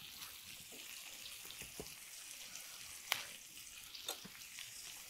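Chopped onions frying in oil in a nonstick pan: a faint, steady sizzle with scattered sharp crackles, the loudest about three seconds in.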